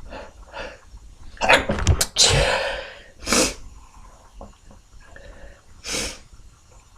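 A person sneezing loudly once, about two seconds in, after a couple of quick in-breaths. Two short sniffs follow, one right after the sneeze and one near the end.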